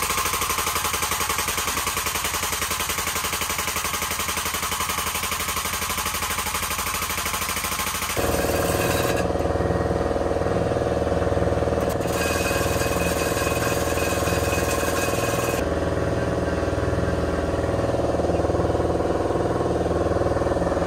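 A motor-driven shop machine running steadily and loudly with a fast, fine rattle. Its tone shifts abruptly about eight seconds in and changes again a few times after that.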